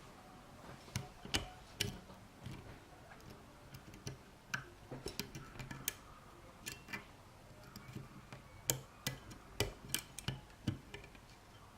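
Lock pick and tension wrench working the pins of a small Corbin padlock: irregular sharp metallic clicks, some in quick clusters, with faint scraping between them.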